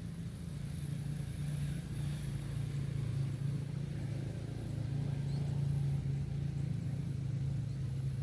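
A small engine running steadily, a constant low hum that neither rises nor falls.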